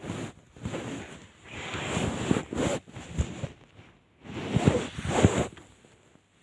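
Fleece blanket rustling and brushing against the phone's microphone as the phone is moved through the bedding, in three irregular bouts of swishing with a few soft bumps.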